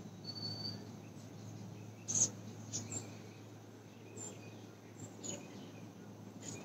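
Faint background with a steady low hum and a high faint whine, broken by a few short knocks, the loudest about two seconds in.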